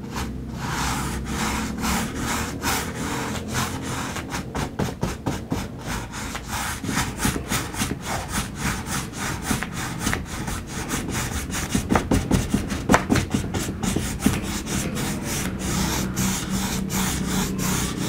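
A nylon flat brush scrubbing acrylic paint back and forth across a stretched canvas in quick rhythmic strokes, about three or four a second, blending the green of a field in the underpainting.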